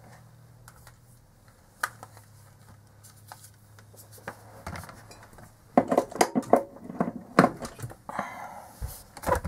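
Metal tools being picked up and handled off to the side: a run of sharp clinks, clicks and clattering from about six seconds in. Before that there are a few isolated clicks over a faint low hum.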